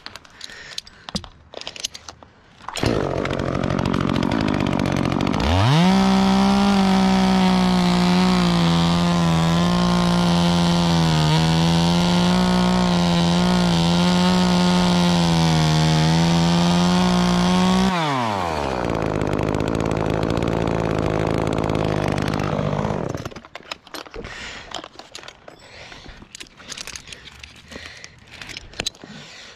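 Chainsaw coming in at idle, then revved to full throttle and held there for about twelve seconds, its pitch sagging slightly a few times as it bites into wood, before dropping back to idle and cutting out. Small clicks and rustles at the start and after it stops.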